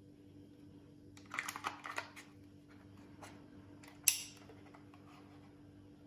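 Small plastic clicks and rattles as a Nuki power pack is handled and fitted into the battery compartment of a Nuki Smart Lock 3.0. There is a cluster of light clicks about a second in, and a single sharp snap about four seconds in.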